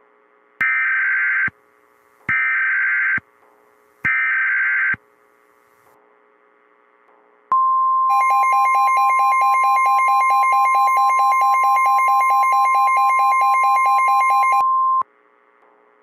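Emergency Alert System SAME header data bursts: three short buzzy digital screeches, each about a second long, spaced about a second apart. A couple of seconds later the NOAA Weather Radio warning alarm follows: a steady single tone held for about seven seconds, with a rapidly pulsing buzzy tone layered over most of it. The sequence signals the start of a tornado warning broadcast.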